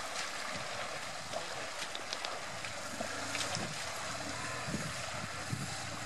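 Rushing water of a shallow river ford, with wind buffeting the microphone and some splashing from wading.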